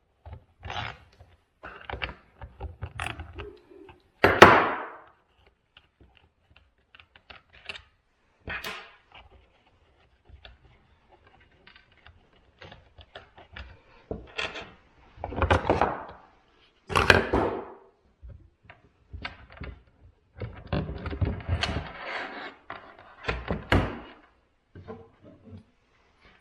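A wrench and chainsaw parts being handled as the bar cover and bar of a cordless chainsaw are taken off: scattered clunks, clicks and scrapes with short pauses, the loudest clunk about four seconds in.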